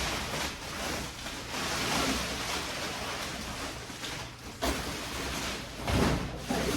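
Plastic wrapping of a vacuum-packed foam mattress rustling and tearing as it is pulled open and the mattress expands, with sharper knocks about four and a half and six seconds in.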